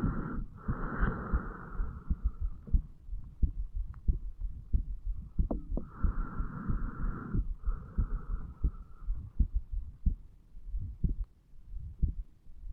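A human heartbeat heard at the chest over the mitral valve area: steady, regular low lub-dub thumps. The hiss of breathing passes over them at the start and again from about six to nine seconds in.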